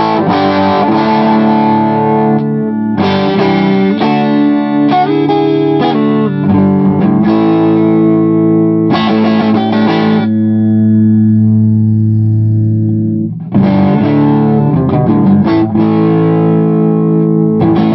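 Electric guitar played through a modified Filmosound amplifier, with its super lead and Filmosound controls turned down. Chords are strummed and picked; about ten seconds in, one chord is left to ring for a few seconds before the strumming starts again.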